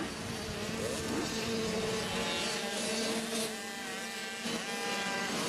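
Several small two-stroke mini motocross bikes running around the track, a steady high engine whine that rises in pitch as a rider opens the throttle, about three and a half seconds in and again near the end.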